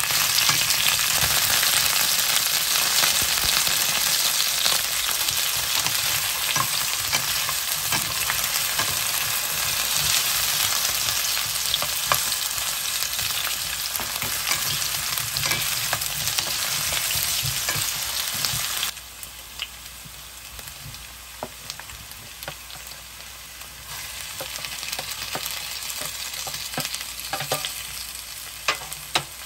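Potato slices sizzling in oil in a nonstick frying pan while a wooden spatula stirs them, with scattered scrapes and knocks. About two-thirds of the way through, the sizzle drops suddenly to a much quieter level, and the spatula knocks stand out more.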